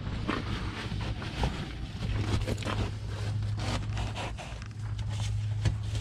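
Old, rotted carpet padding and underlay being handled and pulled back off a car's floor pan: rough, repeated rustling and scraping, over a steady low hum.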